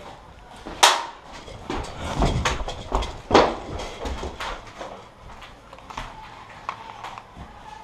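A run of sharp cracks and knocks: a loud one about a second in, a cluster around two seconds, another loud one a little after three seconds, then lighter clicks and scrapes.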